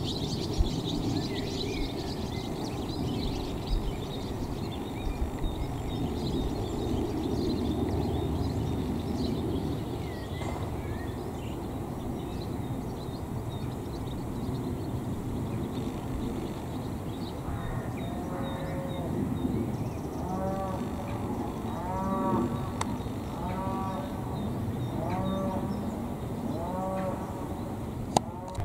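Cattle mooing repeatedly in the second half: a string of short calls, each rising and then falling in pitch. Small birds chirp during the first few seconds.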